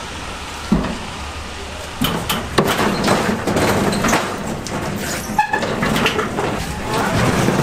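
Heavy cast-iron cauldrons and their metal burner stands being handled and shifted on a steel truck liftgate: a series of knocks and scrapes, with one ringing metallic clank about five seconds in, over a steady low hum.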